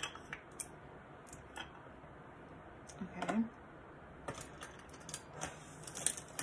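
Scattered light clicks and taps of makeup products and brushes being handled and picked through on a table, with a brief hum of voice about three seconds in.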